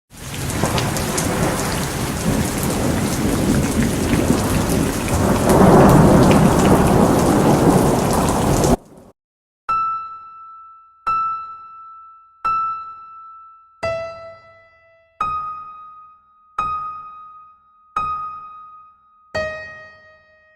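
Heavy rain with thunder rumbling, swelling about halfway through, then cutting off abruptly. It is followed by slow music: single struck keyboard notes, about one every second and a half, each ringing out and fading.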